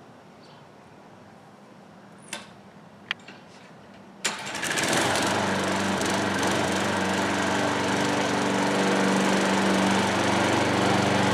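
A Craftsman push lawn mower's small engine catches suddenly about four seconds in and runs steadily, spinning a homemade wooden blade. Before it starts there are a couple of short clicks.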